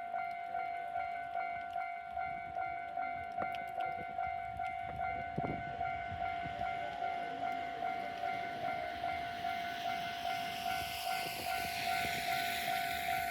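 Japanese level-crossing warning bell ringing electronically in fast, evenly repeating dings. From about nine seconds in, the noise of an approaching AT-650 diesel railcar grows louder under it.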